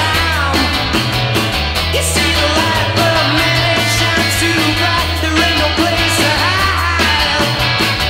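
A rock band's recorded song playing: a bass line stepping between held notes, with drums and midrange instruments whose notes bend in pitch.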